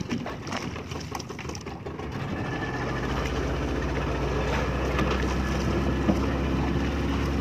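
Fishing boat's engine running steadily, coming up louder about two to three seconds in and then holding an even hum. A few knocks sound in the first two seconds.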